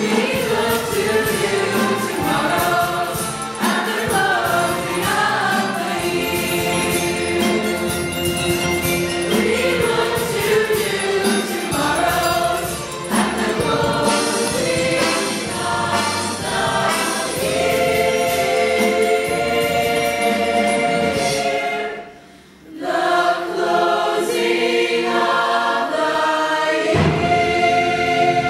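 A choir of high-school students singing together, with a short break about three quarters of the way through before the singing picks up again.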